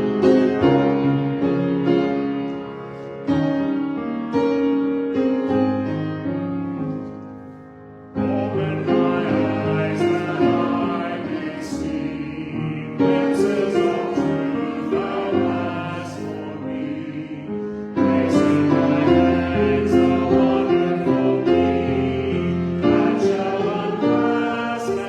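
A song sung by voices with piano accompaniment, in phrases of held chords; one phrase fades out about 7 seconds in before the next begins.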